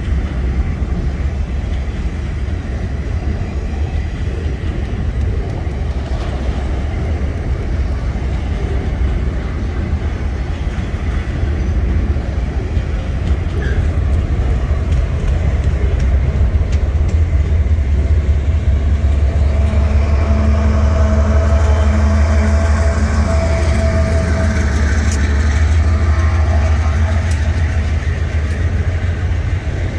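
Freight train hopper wagons rolling past on steel rails: a steady heavy rumble of wheels and bogies. It grows louder in the second half, where a whining tone joins in along with a few sharp clicks.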